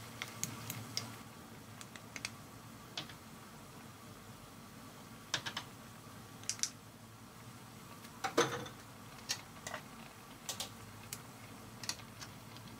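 Scattered light clicks and taps of a wooden spatula and utensils against a nonstick wok as seasonings go in and the stew is stirred, with one louder knock about eight seconds in, over a faint steady hiss.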